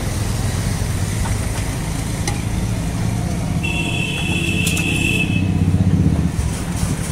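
Motor vehicle engine running close by: a steady low rumble throughout, with a high steady tone sounding for about two seconds midway.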